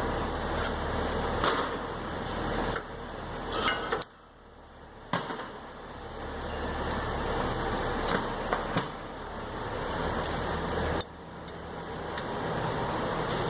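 Scattered metal clinks and knocks from tools and brake parts being handled during rear brake pad work, about eight sharp hits in all, over a steady background hum.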